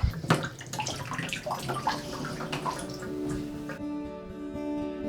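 Water splashing in a bathtub, irregular and noisy, for the first three seconds or so; then background music with a plucked guitar comes in and takes over.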